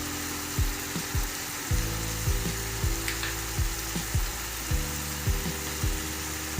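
Thick carrot halwa sizzling in a kadhai as it is stirred, under background music with sustained low notes and a steady beat.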